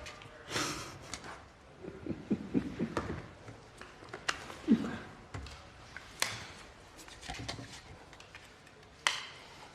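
Scattered light clicks, knocks and rustles of movement, with a brief low sound near the middle.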